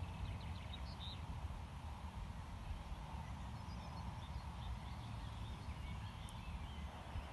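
Faint outdoor ambience: a steady low rumble of wind on the microphone, with a few faint bird chirps in the first second.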